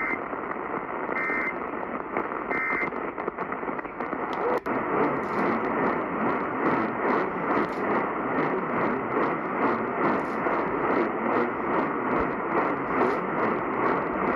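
Weak radio reception: a steady static hiss with a faint regular pulsing. In the first three seconds three short data-tone bursts come about a second apart, the pattern of EAS end-of-message codes.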